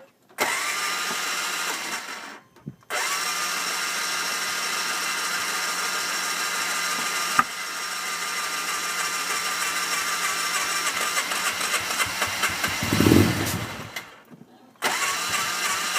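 Polaris RZR side-by-side engine repeatedly catching, running a few seconds and cutting out: it dies at about two and a half seconds, picks up again, runs steadily, then surges briefly and dies again near the end before catching once more. The sign of a hard-starting engine that won't stay running.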